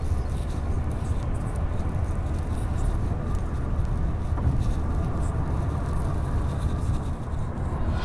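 Loud, steady road and tyre rumble of a car cruising at motorway speed, heard from inside the cabin.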